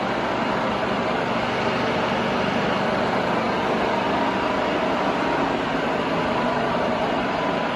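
Sachman bed milling machine running, a constant even mechanical hum with faint steady tones in it.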